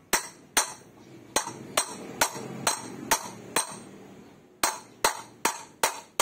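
Hammer striking a 32 mm steel socket held on the outer ring of a new sealed bearing, driving the bearing into a motorcycle front mag wheel's hub. Regular metallic strikes, about two a second, each with a short ring, pausing for about a second just past the middle.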